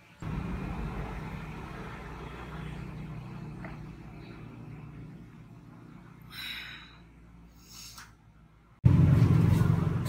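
A low, steady rumble that starts abruptly and fades over several seconds, two brief higher sounds, then a louder low rumble that starts suddenly near the end.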